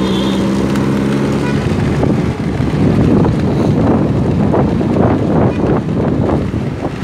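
Motorcycle ride: a steady engine hum for the first second or two, then gusty wind buffeting on the microphone takes over and stays loud.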